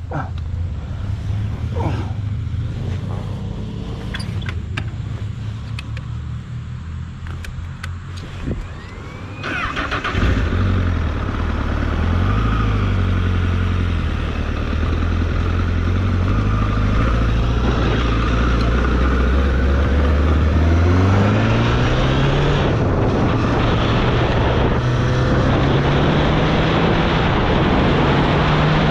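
Motorcycle engine running as the bike rides along, with wind rush. It grows louder about ten seconds in, and over the last several seconds its note climbs steadily as the bike accelerates.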